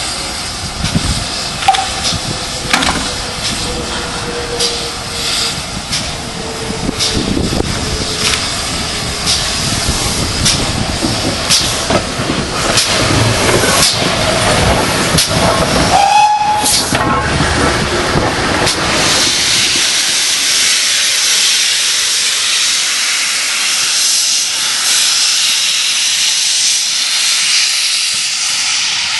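A steam locomotive running past close by, its wheels clicking over the rail joints over a low rumble, with a short whistle toot about halfway through. From about two-thirds of the way in, a steady loud hiss of steam blowing from a tank engine's open cylinder drain cocks as it gets under way.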